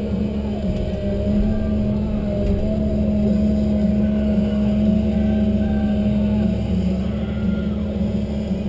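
Tigercat 1075B forwarder's diesel engine running steadily under the crane's hydraulic load, heard from inside the cab, with a steady higher whine over the low hum as the crane swings.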